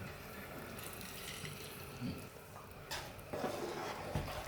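Lemon juice squeezed by hand trickling into a pot of simmering chicken biryani masala, with a few light knocks near the end.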